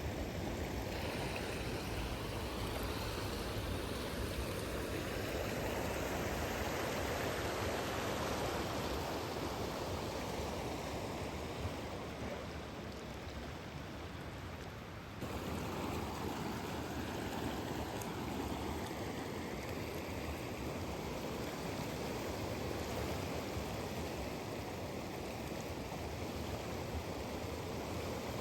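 Steady rushing of flowing water, like a stream. It dips a little just past the middle, then comes back suddenly.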